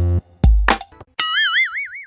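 Music with deep plucked notes, then a cartoon boing sound effect about a second in: a high tone that wobbles quickly up and down in pitch for about a second.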